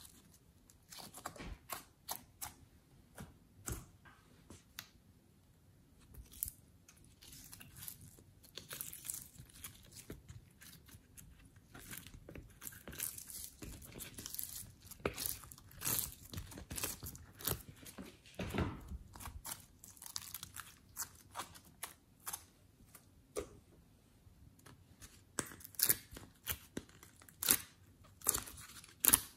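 Glossy slime being stretched, squeezed and pressed by hand into a silicone mould: irregular sticky clicks, pops and crackles, loudest and sharpest near the end.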